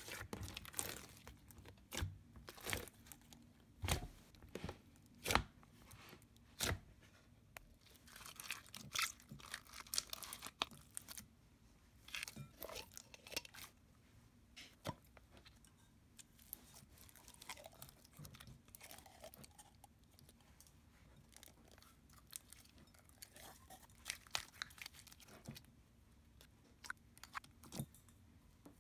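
Hands squishing, stretching and folding slime: irregular sticky pops and clicks as air pockets burst, with short runs of fine crackling.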